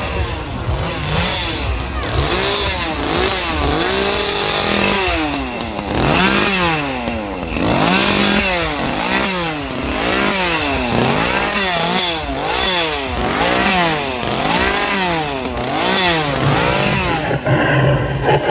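Chainsaw engine revved over and over, its pitch rising and falling about once a second, until it stops shortly before the end.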